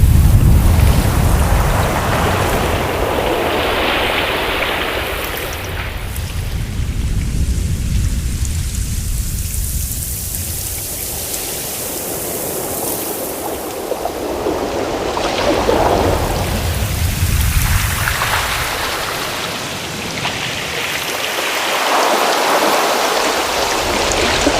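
Ocean waves: a continuous rushing of surf that swells and ebbs in slow surges every several seconds, with a deep rumble at the start.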